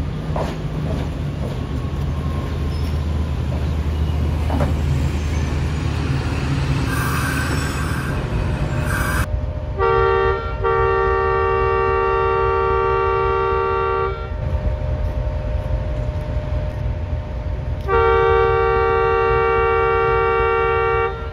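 A diesel train rumbles through the station for the first several seconds. Then a diesel locomotive's air horn sounds two long blasts, the first with a brief break just after it begins.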